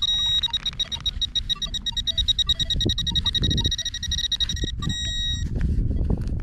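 Metal detecting pinpointer sounding a rapid, high-pitched pulsing beep as it sits on a target, stopping about five and a half seconds in. Rustling and scraping from handling and digging run underneath.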